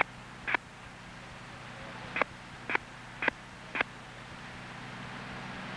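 A steady low drone, typical of a fire engine running at the scene, under a series of short sharp knocks: two in the first second, then four about half a second apart a couple of seconds in.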